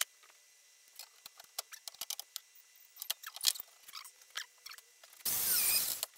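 Light scattered clicks and taps of steel rods and hand tools being handled on a wooden workbench. About five seconds in, a loud rushing noise lasts under a second.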